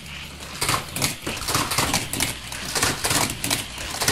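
Die-cast toy cars rattling along plastic track and round the spinning turbine wheel of a Hot Wheels Turbine Twister set: a fast, irregular clatter of clicks over a steady low hum.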